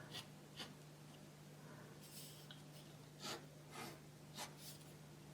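Faint scratching of a pen drawing a sketch, short strokes every second or so, over a low steady hum.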